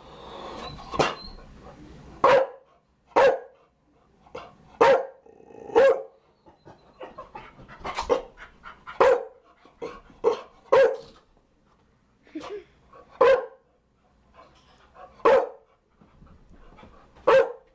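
Chow Chow dog barking: about a dozen single, sharp barks at uneven gaps of a second or two.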